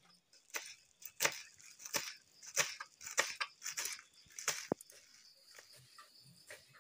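Kitchen knife chopping fresh spring onion stalks on a wooden board: crisp, even cuts about every 0.6 seconds that thin out after about five seconds. Crickets chirp faintly underneath.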